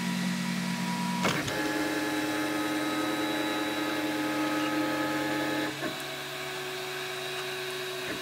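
MakerBot Replicator 2's stepper motors whining in steady tones as the printer moves its build platform and extruder into position to begin a print. The pitch changes abruptly with a click about a second in and again near six seconds.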